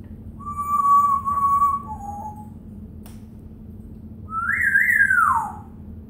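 African grey parrot whistling: a long steady note, then a short lower one, and about four seconds in a note that rises, wavers at the top and slides down.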